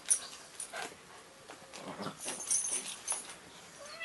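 A puppy making small dog noises while play-fighting with a cat, among scattered short scuffles and knocks.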